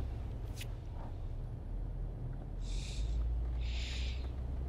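Jeep Wrangler engine running at a low-speed crawl, heard as a steady low drone inside the cab that grows a little louder about three seconds in. Two short breathy puffs come about a second apart midway through.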